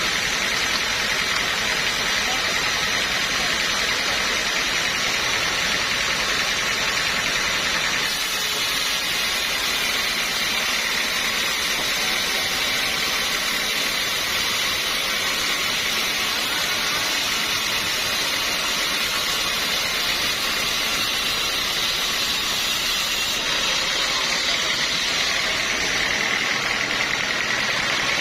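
Sawmill saw machinery running with a steady, loud whir.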